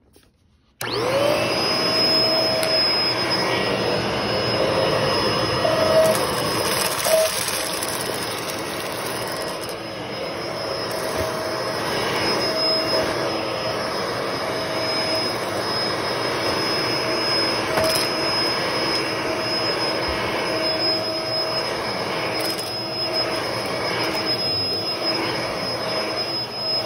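Vacuum cleaner switched on about a second in, its motor spinning up to a steady high whine and then running over carpet. A few sharp clicks come through as dry cat kibble is sucked up.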